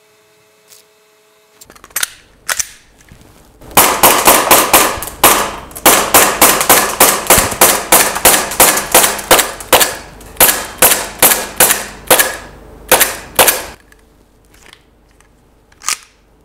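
Umarex H&K VP9 gas blowback airsoft pistol firing on green gas, the slide cycling with each shot: two single shots, then a long string of shots in quick succession that empties the magazine.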